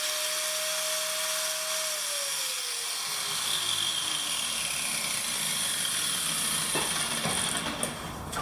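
Angle grinder with a 4.5-inch dry-cutting diamond blade cutting through porcelain tile: a steady high-speed grinding hiss, with the motor's hum dropping in pitch about two seconds in as rougher, deeper grinding noise comes up.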